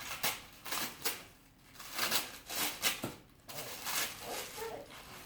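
Packing paper rustling and crinkling in short bursts as a wrapped wooden toy is unwrapped.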